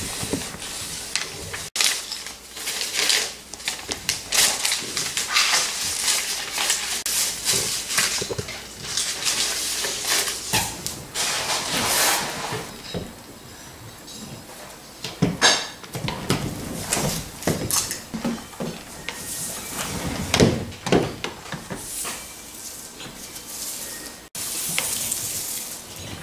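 A broom's bristles and paper scraps rustling and scraping across a hardwood floor, with irregular clattering knocks. The sound breaks off abruptly twice.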